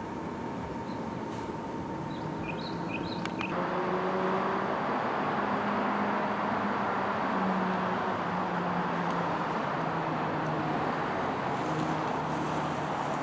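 Steady outdoor background noise with a low, slowly wavering hum like a running vehicle engine, growing louder about three and a half seconds in; no firework shots.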